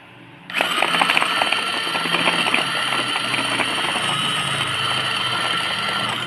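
Electric mini food chopper switched on by pressing the button on its lid about half a second in: a steady high motor whine from the spinning blades, with a dense clatter of food pieces striking the blades and bowl that is thickest over the first couple of seconds.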